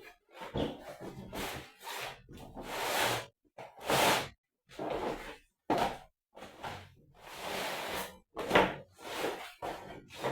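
Plastic vinyl floor covering being handled and laid: a run of short rustling swishes and dull thuds with brief pauses between them.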